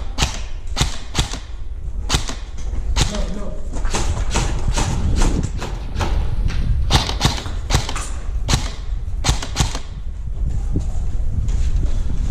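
Airsoft guns firing: irregular sharp snaps, single shots and quick strings, that thin out about ten seconds in, over a steady low rumble.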